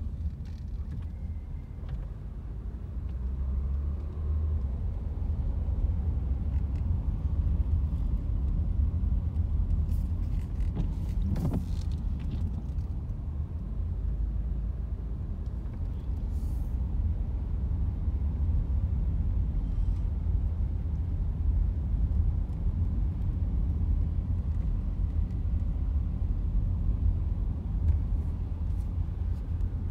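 Low, steady rumble of a car driving, heard from inside the cabin, with a few light clicks and knocks near the middle.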